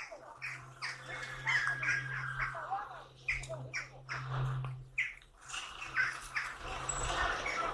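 Small birds chirping and squawking in short, irregular calls over a steady low hum.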